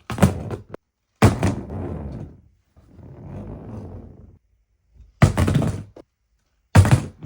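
A series of loud thuds and knocks, four sharp hits, each with a short clattering tail, and a softer rustling swell between the second and third.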